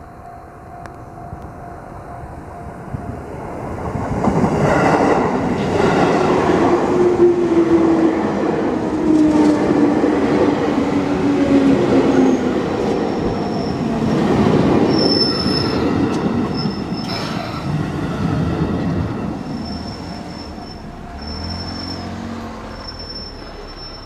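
Chūō Line train passing the level crossing: its running noise builds about four seconds in, stays loud for some fifteen seconds and fades near the end, with a motor whine falling in pitch partway through and short high wheel squeals in the second half.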